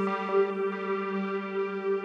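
Ambient electronic music: a steady held chord with a few faint ticks.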